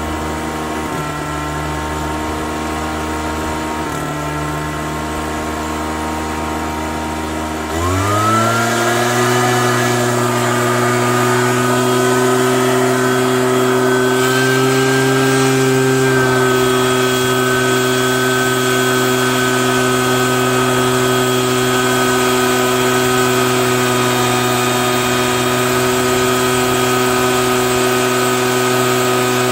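Homemade oil-drum leaf vacuum running: its fan motor runs steadily at a lower speed, then about eight seconds in speeds up quickly and holds steady at a higher, louder pitch.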